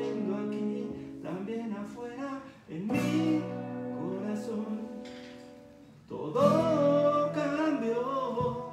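Acoustic guitar strummed together with sustained chords on a Casio Tone Bank electronic keyboard, with a man's voice singing over the chords near the end.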